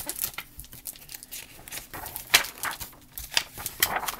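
Pages of a hardcover picture book being turned and handled: paper rustling in short sharp flicks, loudest about two and a half seconds in.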